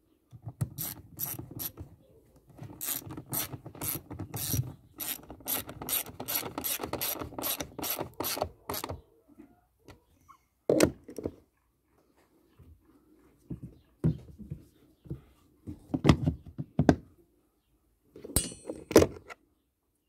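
Hand ratchet wrench clicking in quick runs as it turns the screws of a plastic engine air filter housing cover, for about the first nine seconds. After that, only a few scattered knocks.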